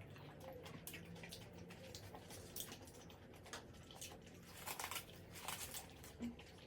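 A person chewing and eating braised pork and kimchi close to the microphone: soft wet mouth clicks and squishes, coming in a busier, louder cluster about two thirds of the way through.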